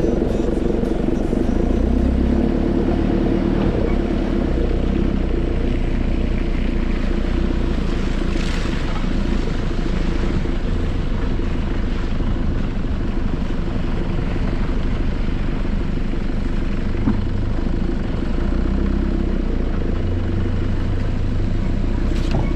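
Nissan Patrol Y61 4x4 engine running steadily as it drives slowly along a dirt forest track, a continuous low drone.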